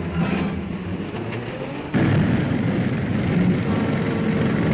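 Music for about the first two seconds, then a sudden cut to loud, steady engine and track noise from Bren gun carriers crossing a pontoon bridge.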